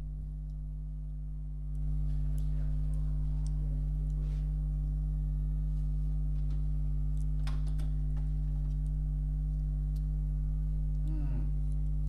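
Steady electrical hum from a reggae sound system's speakers between tunes, a low buzz that steps up in level about two seconds in. A few faint clicks and a brief voice come through near the end.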